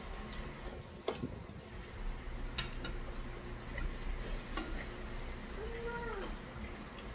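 Metal chopsticks and a spoon clinking against a stainless steel soup bowl while eating, a few sharp clinks a second or two apart.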